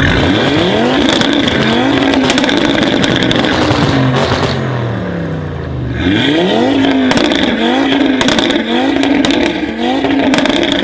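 Audi RS3 Sportback's turbocharged five-cylinder engine through a full Armytrix exhaust, pulling hard twice. Each time the pitch climbs in a series of rising arcs and then falls away, with sharp exhaust crackles and pops between.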